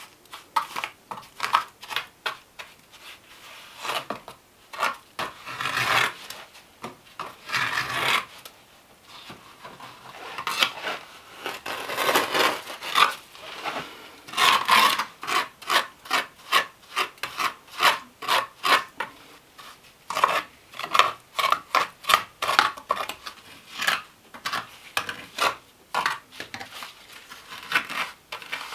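Trowel scraping and raking wet mortar in the joints of a fieldstone wall: runs of quick, short strokes, several a second, with brief pauses between runs.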